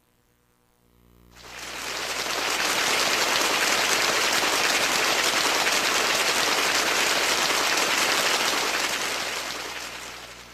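A pre-recorded sound effect from a Kumyoung Chorus HD3000 karaoke player: a dense, steady rush of crackling noise that fades in over about a second, holds, and fades away near the end.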